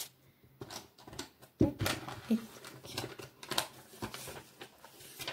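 Hands handling paper craft items and their plastic wrapping on a table: rustling with light taps and clicks, and one louder knock about one and a half seconds in.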